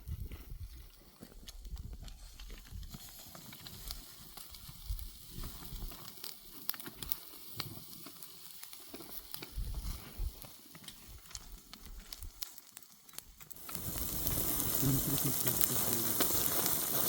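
Low rumble with scattered knocks and clicks, then, about three-quarters of the way in, a steady sizzle with crackles starts abruptly: meat frying.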